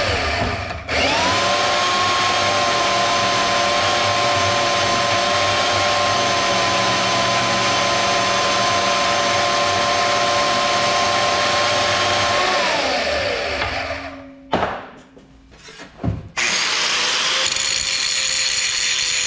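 Portable band saw running and cutting through a round steel piece, its motor winding down in pitch after it is switched off about 13 seconds in. After a short pause with a few knocks, an angle grinder starts up near the end and runs, grinding steel.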